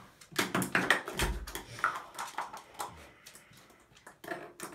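A small plastic cap clattering and bouncing on a hard floor while a small dog's claws scrabble after it: a run of quick clicks and knocks, busiest in the first two seconds, with a low thump a little over a second in.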